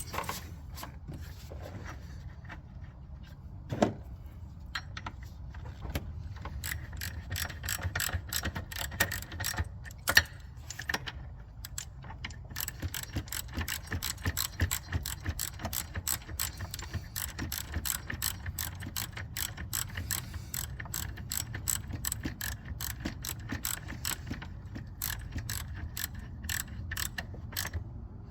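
Ratchet wrench clicking in quick runs, tightening the bolts and exhaust-tube fitting of a newly fitted EGR valve, with a couple of sharper knocks about four and ten seconds in.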